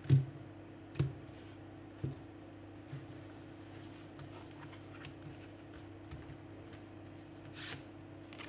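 Oracle cards handled on a table: a few sharp taps in the first three seconds as the deck is set down and spread out, then a brief swish near the end as one card is slid out of the fan. A faint steady hum runs underneath.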